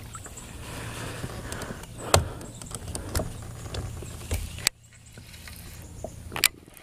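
Handling noise from fishing gear near the camera: a handful of separate clicks and knocks from the rod, the baitcasting reel and a hand, over a low steady hum. The sound drops off suddenly a little past the middle.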